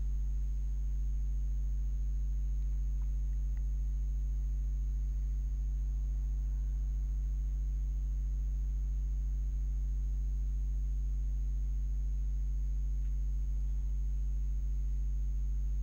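Steady low electrical mains hum with a faint high-pitched whine over it, unchanging.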